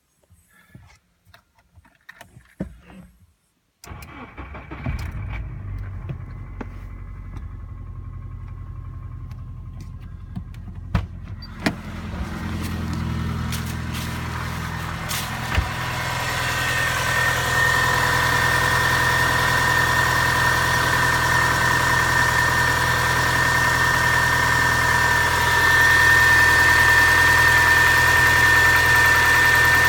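A few light clicks, then a Subaru four-cylinder boxer engine starts and runs at idle. The knock in it is the sign of a problem in the number four cylinder. The engine grows louder over time, and a steady high whine joins about halfway through.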